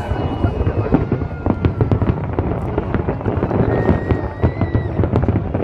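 Aerial fireworks display bursting in rapid succession: a dense run of bangs and crackles over a continuous low rumble, with a thin whistling tone about four seconds in.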